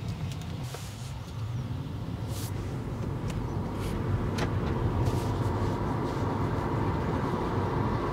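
Tesla Model 3 driving, heard from inside the cabin: a steady low rumble of tyre and road noise with no engine note, growing slightly louder about halfway through. A few faint clicks sound over it.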